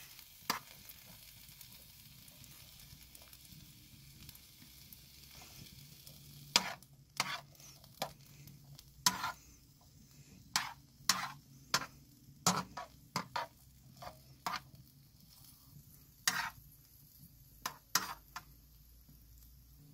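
Cauliflower, carrots and green beans frying with a faint sizzle in a wide black iron pan. From about six seconds in, a metal ladle scrapes and clinks against the pan again and again as the vegetables are stirred.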